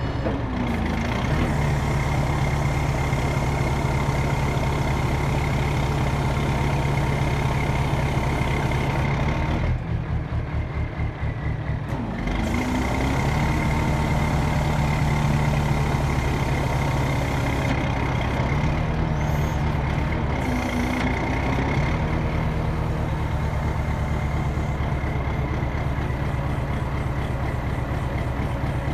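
Scania 143's V8 diesel engine running at raised revs to drive the loader crane's hydraulics as the boom is folded, with a thin steady whine over it. The revs drop back about ten seconds in and pick up again two or three seconds later, and glide up and down briefly a few more times.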